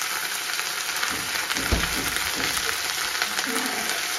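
Ginger-garlic paste frying in hot oil in a pan, sizzling with constant spluttering crackles. A single dull knock comes a little under two seconds in.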